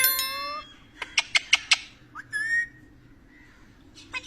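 Indian ringneck parakeet calling: a drawn-out call, then a quick run of about five short, sharp squawks, then another call that fades into a faint whistle.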